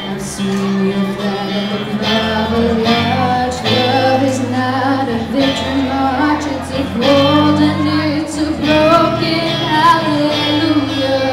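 Live band playing a slow song: a singer carries the melody over held low notes and chords that change every second or two.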